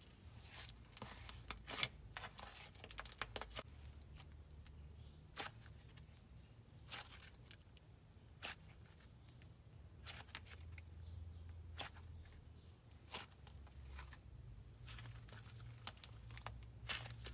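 A stretchy clay slime being squished and pulled by hand, giving faint, irregular crackles and small pops over a low steady hum.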